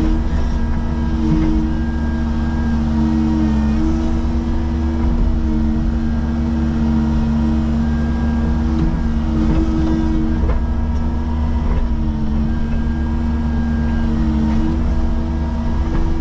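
Cat excavator's diesel engine running steadily under load while its hydraulics work the boom and bucket, digging into a dirt hillside. The engine note dips briefly in pitch a few times as the hydraulics take load.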